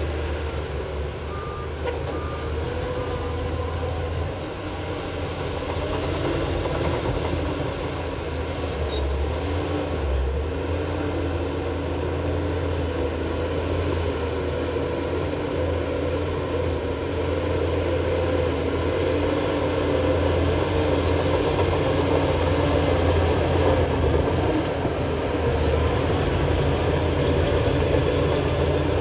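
Heavy diesel engine of earthmoving machinery running steadily under load, slowly getting louder. A reverse alarm beeps three times in the first few seconds.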